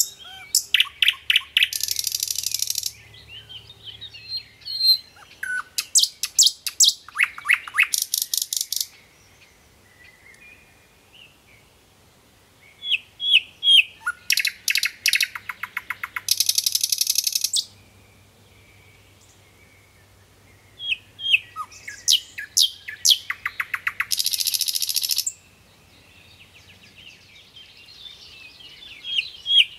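A songbird singing in loud phrases of rapid trills, each ending in a dense buzzy rattle. The phrase comes four times with pauses of a few seconds, and other birds chirp faintly in between.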